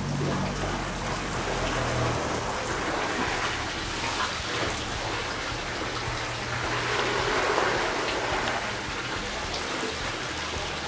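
Steady rushing hiss of steam and water around tofu-making vats, with a faint low hum in the first couple of seconds.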